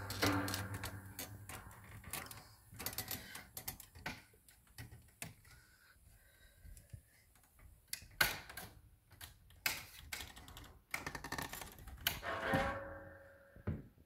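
Irregular knocks, thuds and clatter of someone moving over attic boards and climbing down a wooden folding attic ladder, with a brief squeak near the end.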